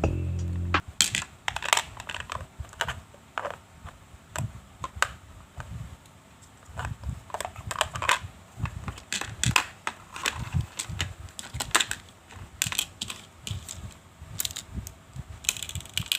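Hands handling a plastic lunch box and its packaging: irregular clicks, taps and crinkles of plastic parts being opened, fitted and set down, with background music stopping just under a second in.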